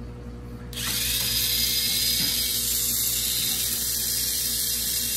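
Tamiya Mini 4WD car's small electric motor and gears switching on about a second in and running with a steady high-pitched whir. The freshly cleaned drivetrain runs nice and smooth, so quiet.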